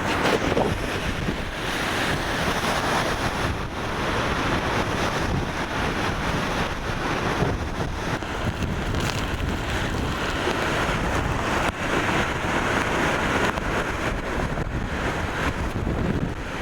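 Category 3 hurricane eyewall wind blowing hard and unbroken, swelling and easing in gusts, with the wind buffeting the microphone.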